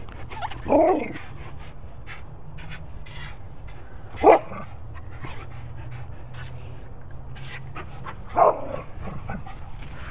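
Dog barking: three separate barks, about four seconds apart.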